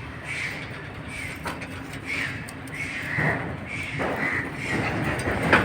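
Birds calling over and over, about two short calls a second, with a few sharp knocks, the loudest one near the end.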